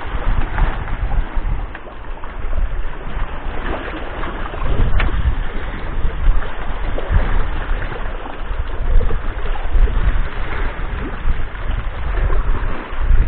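Wind buffeting the microphone in gusts over sea waves washing and splashing against the concrete blocks of a breakwater.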